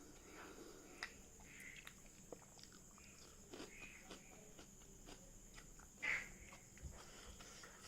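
Quiet chewing and mouth clicks of someone eating cow skin in a perilla seed dish, with one louder mouth sound about six seconds in.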